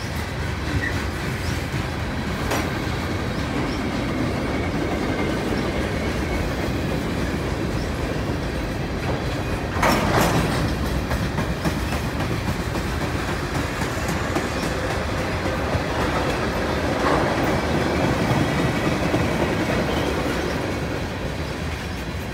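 Freight train's boxcars and tank cars rolling past: a steady rumble of steel wheels on the rails, with a louder burst of noise about ten seconds in.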